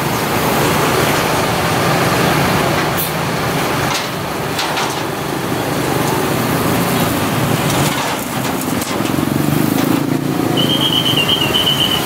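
Tour bus diesel engine running as the bus pulls slowly out into traffic, with motorcycle and road traffic noise around it. Near the end a high, trilling whistle starts.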